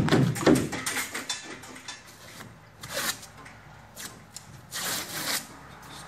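Scraping and rubbing at the cut edge of a gypsum board, stripping off its wetted paper facing, in several short irregular strokes, strongest at the start and again twice later.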